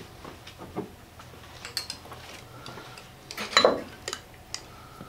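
Light clicks and clinks of a glass bottle of pepper glaze and a small glass bowl being handled on a wooden table, with one louder clatter about three and a half seconds in.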